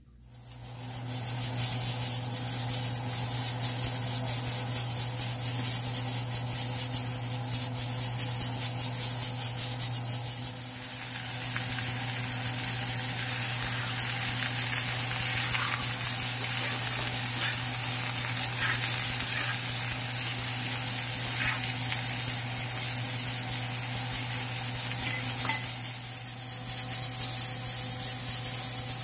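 Diced carrots and potatoes sizzling as they fry in a metal pan, stirred with a metal spatula that scrapes the pan now and then in the middle of the stretch, over a steady low hum.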